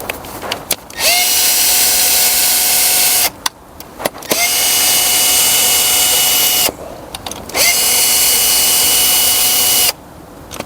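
Cordless power tool (the 'gun') spinning out manifold bolts in three runs of about two seconds each. Each run spins up quickly to a steady whine and winds down, and a fourth run starts right at the end.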